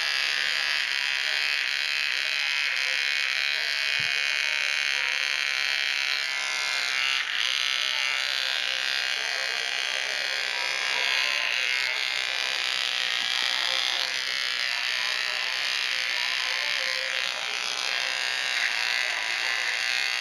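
Oster cordless pet trimmer running with a steady buzz as it clips the fur around a dog's paw pads.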